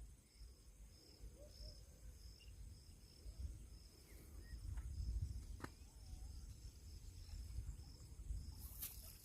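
Insects chirping in a steady high pulse, about two to three chirps a second, over a low rumble, with one sharp click a little past halfway.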